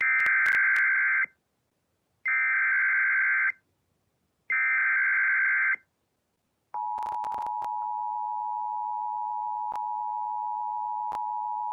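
Emergency Alert System tones: three bursts of SAME header data, each a harsh digital warble about a second long with short silences between. A little under seven seconds in, the steady two-tone EAS attention signal starts and holds, announcing a severe thunderstorm warning.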